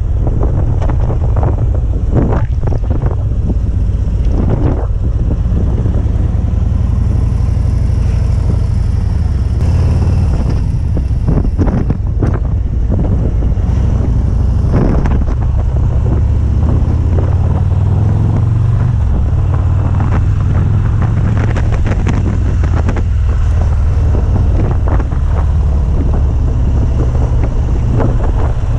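Harley-Davidson Street Glide ST's Milwaukee-Eight 117 V-twin running as the motorcycle is ridden, a steady low rumble, with wind buffeting the microphone.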